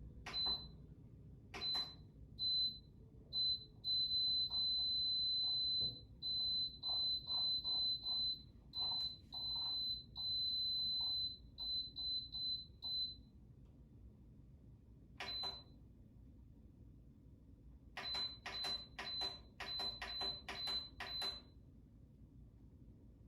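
Electronic control panel of an air fryer toaster oven beeping: one high-pitched tone in irregular runs of short and long beeps, each with a click. One beep stands alone in a pause about two-thirds of the way through, and a final quick run follows.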